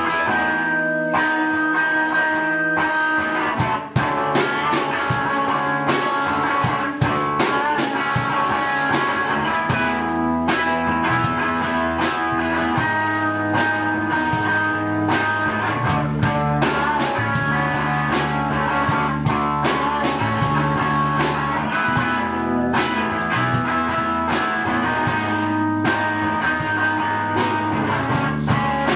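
Live rock band playing: amplified guitars hold sustained notes alone at first, then the drum kit comes in about four seconds in with a steady beat of cymbal and drum hits under the guitars.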